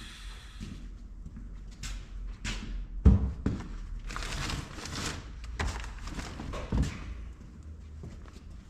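Irregular clunks and clatter of heavy engine parts being handled and set down during a teardown, with the loudest knock about three seconds in and another near seven seconds.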